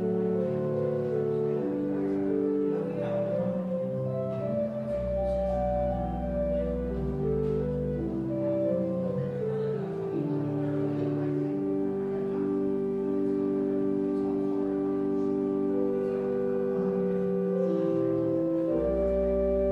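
Organ playing slow, sustained chords. A deep bass note comes in about five seconds in, drops out around eight seconds, and returns near the end.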